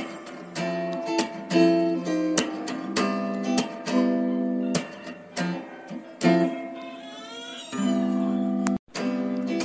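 Background music of acoustic guitar playing plucked notes and strums, with a brief break near the end.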